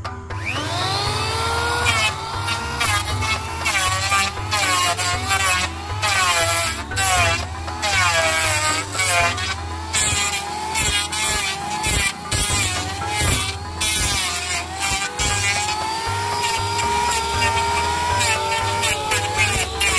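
Electric hand planer spinning up about half a second in, then shaving a wooden plank: its high motor whine dips and recovers repeatedly as the blades bite into the wood on each pass.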